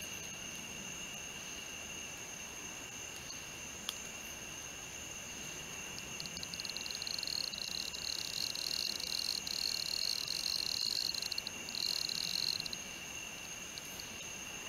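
Male restless bush cricket (Hapithus agitator) stridulating a high, buzzy courtship trill that starts a little before halfway through, lasts about six seconds with a short break near its end, then stops. Steady high-pitched insect song continues underneath throughout.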